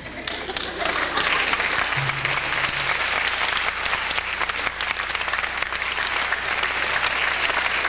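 Audience applause, building up over the first second and then holding steady as a dense patter of many hands clapping.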